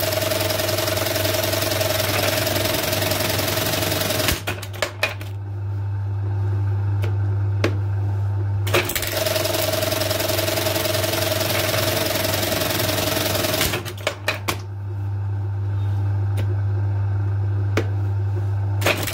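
Dürkopp 557 eyelet buttonhole machine sewing two eyelet buttonholes, each a fast run of stitching about four and a half seconds long over a steady motor hum. Each run ends in a quick cluster of sharp clicks and knocks, then the motor hums on more quietly while the garment is moved.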